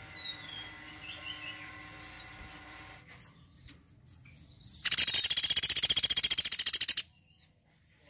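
Caged woodpecker giving a loud, rapid, high-pitched trill of evenly spaced notes, about two seconds long, starting about five seconds in and stopping abruptly. Before it, a few faint short chirps over a low steady hum.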